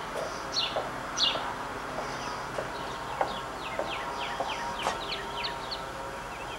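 Small birds chirping: a string of short, quick downward-sliding chirps that come thickest in the middle, over a steady hum.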